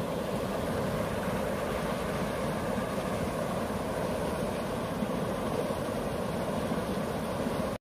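River rushing over rapids, a steady loud rush of water that cuts off abruptly at the end.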